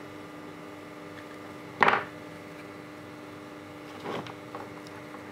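Handling noise from pliers and a small plastic project box: a short sharp clatter about two seconds in and a softer rustle about four seconds in, over a steady electrical hum.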